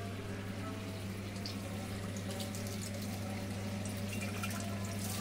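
Water running from a kitchen tap into a glass jar, with a few faint ticks and a steady low hum underneath.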